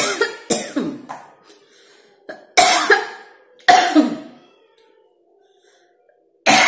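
A person coughing hard after choking on food that went down the wrong way: a quick run of harsh coughs at the start, two single loud coughs a few seconds in, and another run near the end.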